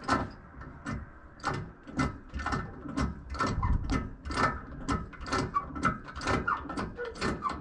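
Hydraulic cab-lift hand pump on a Kenworth K100E cabover being worked by its lever, a metallic clack with a short ring about twice a second. It is pumping fluid into a newly replaced cab lift cylinder to raise the cab.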